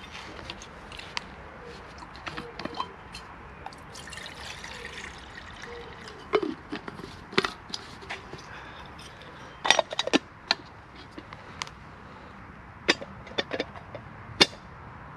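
Water poured from a stainless steel flask into a small metal camping kettle, followed by sharp metallic clinks as the kettle and its lid are handled, with a clustered run of clicks about two-thirds of the way in.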